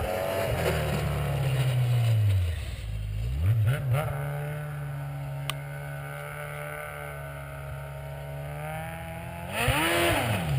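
2007 Yamaha Apex Mountain snowmobile's four-cylinder four-stroke engine, fitted with an aftermarket exhaust. The revs drop, climb again, hold steady for several seconds, then rise and fall quickly near the end.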